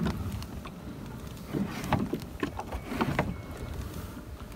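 Pedal-drive kayak on the move, with a low rumble of wind on the microphone, water sounds and scattered light knocks and clicks from the hull and drive as it is pedalled and turned.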